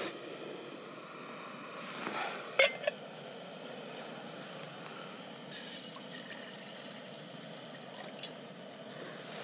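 Hose-fed gas canister camping stove burning with a steady hiss. A metal pot clinks down onto the burner about two and a half seconds in, and water is then poured into the pot.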